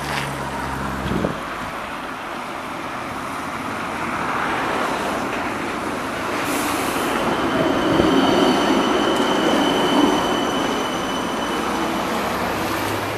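Škoda ForCity Smart Artic tram rolling along the rails toward and past, its rumble of wheels on track growing loudest about eight to ten seconds in. A steady high whine rides over it in the second half.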